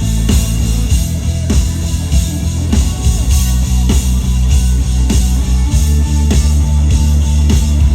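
Live band music over the PA: drum kit keeping a steady beat under bass and electric guitar.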